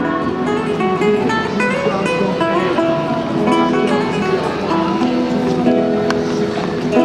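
Acoustic guitar music, plucked and strummed notes changing steadily.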